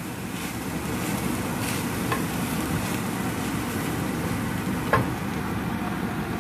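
Soya granules frying in a little oil in a small nonstick pan while being stirred with a spatula: a steady frying sound with the rustle and scrape of stirring. A sharp knock about five seconds in, with a fainter one about two seconds in.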